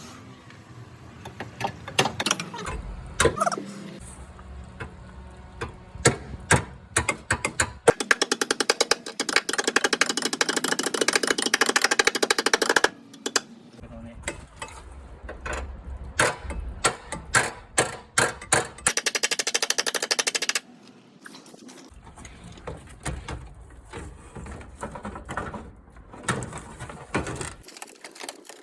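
A power tool rattling in two spells of about four to five seconds each, a dense run of rapid strikes, with scattered clicks and knocks of metal parts being handled between and after.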